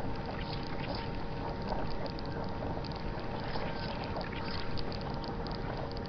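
Seismometer recording of ground vibration sped up 120 times: a steady rumbling hiss with several faint steady tones, the sped-up vibration of large waterworks pumps, sprinkled with small crackling ticks from human-made vibrations.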